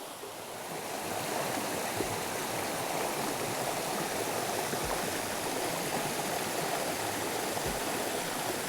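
Water rushing steadily down a small mountain waterfall and stream. It grows louder about a second in and then holds steady.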